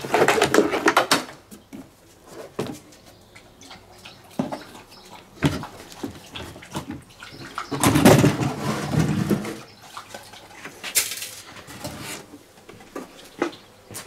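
Handling noises from an emptied equipment case being packed up and moved: rustling of cloth and cord, scattered knocks and taps. A louder stretch of rustling and scraping comes about eight seconds in.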